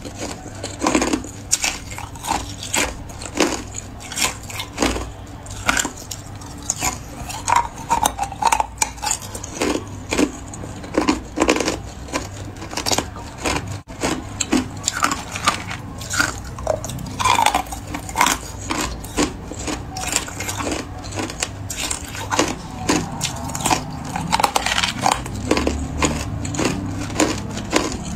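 Hard clear ice cubes crunched between the teeth: many sharp, irregular cracks in quick succession.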